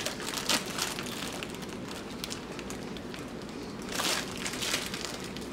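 Plastic Ziploc bag crinkling and rustling as it is handled, with a louder rustle about four seconds in.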